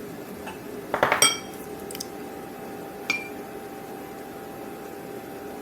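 Kitchen utensils clinking against a dish while ground white pepper is measured into a marinade: a quick run of ringing clinks about a second in, then a single clink near three seconds.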